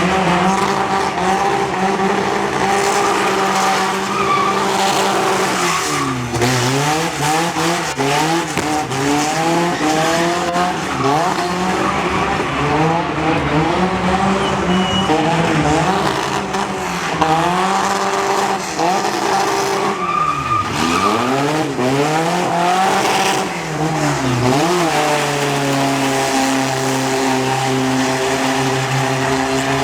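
Car engine revving hard and held high during a burnout, with tyres squealing and spinning; the revs drop sharply and climb back several times.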